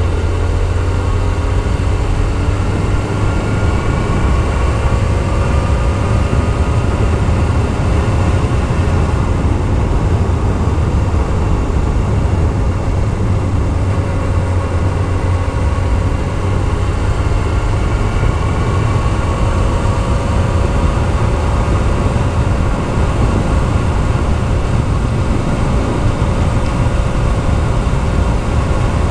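Yamaha YZF-R6S sport bike's inline-four engine running under way on an uphill road, its pitch drifting slowly up and down, over a loud low rumble of wind on the microphone.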